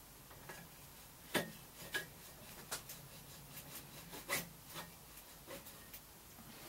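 Faint, scattered light knocks and clicks of bicycle parts and tools being handled, about seven in all, the loudest about a second and a half in and again about four seconds in.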